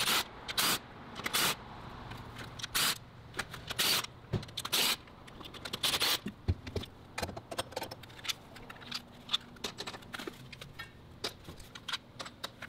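Ratchet and socket working the 11 mm intake-manifold bolts and nuts loose, in short bursts of ratcheting, followed by many small metallic clicks and clinks as the tool and fasteners are handled.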